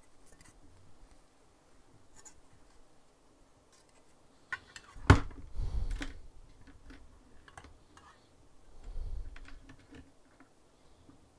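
Handling noise of a phone camera being moved about and set down on a desk: scattered light clicks and rubbing, a sharp knock about five seconds in, and low thumps.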